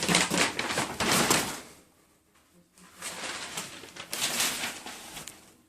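Packaging being handled and rustled as the leather backpack is unboxed. The rustling comes in two noisy, crackly stretches with a short pause between them.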